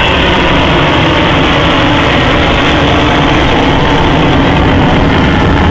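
Loud, steady jet noise from an Avro Vulcan bomber's four Rolls-Royce Olympus turbojets during a display flypast.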